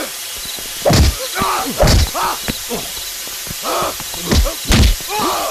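Film fight sound effects: a string of sharp punch-and-blow impacts, about five in all, with men's short grunts and cries between them.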